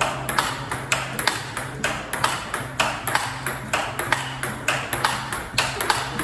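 Table tennis rally with bats faced in Vega Asia rubber: a plastic ball struck back and forth and bouncing on the table, giving a steady run of sharp clicks about three a second.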